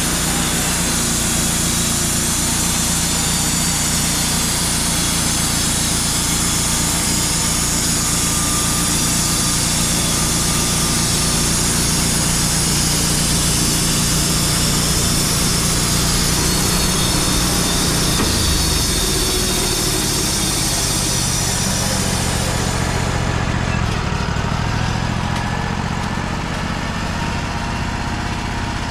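Wood-Mizer LT35 band sawmill's engine running steadily while the band blade cuts through a cedar log. The high hiss of the cut falls away about 23 seconds in, and the engine keeps running.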